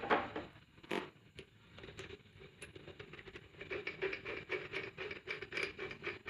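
Hand-held hydraulic crimping tool being handled as its die and stopper are fitted: two sharp metal clicks, at the start and about a second in, then a run of light quick ticks and scrapes.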